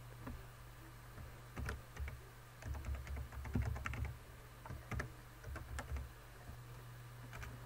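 Computer keyboard typing: irregular runs of key presses, busiest in the middle, over a steady low hum.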